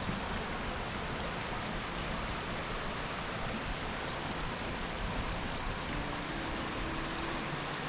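A creek's flowing water rushing steadily below a footbridge.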